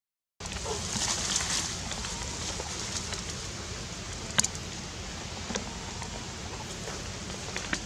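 Rustling of leaves and branches, with a few scattered sharp twig snaps, over a steady outdoor hiss. The sound drops out briefly right at the start.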